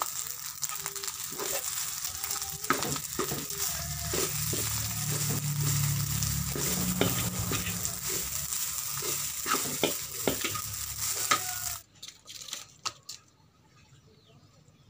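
Rice frying in a metal wok, sizzling steadily while a metal spatula stirs it and scrapes and clinks against the pan. The sizzling cuts off suddenly about twelve seconds in, leaving a few clicks and faint background.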